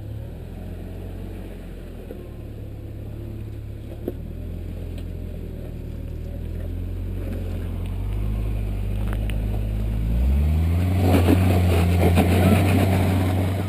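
Lifted pickup truck's engine running low and slow as it crawls over rock, then revving up about ten seconds in as it climbs the ledge. The rise is joined near the end by a loud crackling rush of tyres scrabbling on rock and grit.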